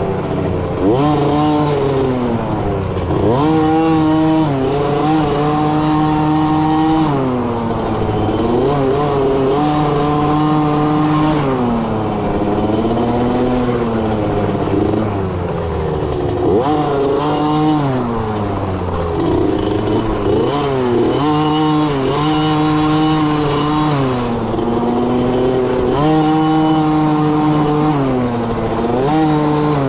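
A youth dirt bike's small engine, recorded on the bike, revving hard through a trail ride: the pitch climbs and holds, then drops back, over and over as the throttle is worked and gears change.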